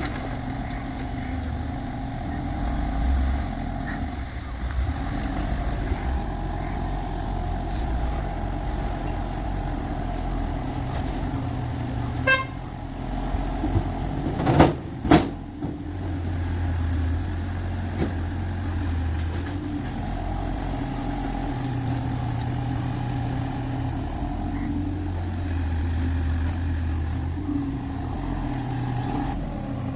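Excavator's diesel engine running steadily under load, with a few sharp metallic knocks about halfway through.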